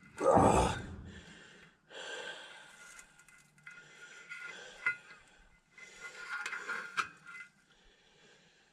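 A man breathing hard from physical exertion, several separate breaths, with a short vocal grunt at the start and a couple of sharp clicks.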